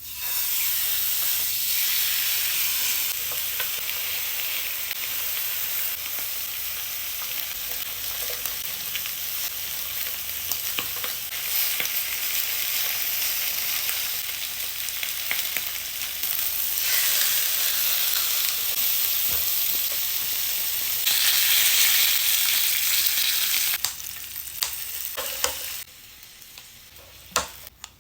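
Food sizzling on a Korean barbecue grill: a steady frying hiss that swells and eases, then dies down near the end, with a few sharp clicks.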